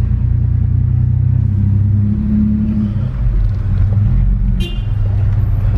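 Car engine running, heard from inside the cabin as a steady low rumble.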